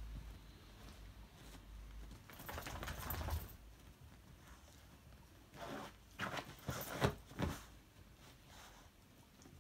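An English setter digging with its paws and nose at fabric sofa cushions to bury a bone: a rustling burst about two and a half seconds in, then a quick flurry of scratchy rustles around six to seven and a half seconds in.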